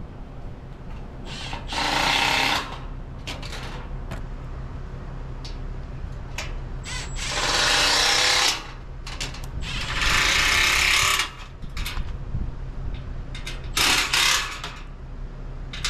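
Handheld power drill running in four short bursts of about a second each, over a steady low hum.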